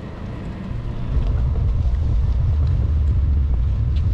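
Low, steady rumble of a bicycle riding along a paved path, with wind buffeting the microphone and tyres rolling on the concrete. It grows louder about a second in.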